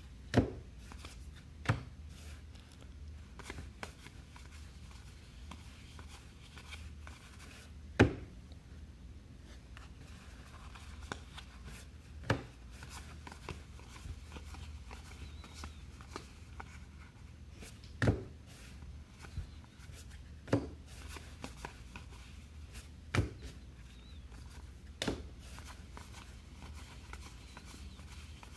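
Trading card packs and cards being handled on a tabletop: sharp knocks every few seconds as things are set down or tapped on the table, with soft rustling between them over a steady low hum.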